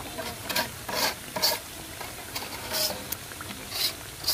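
Spiral jalebi deep-frying in hot oil, sizzling steadily while a thin stick turns them. Short, louder bursts of sizzle come several times.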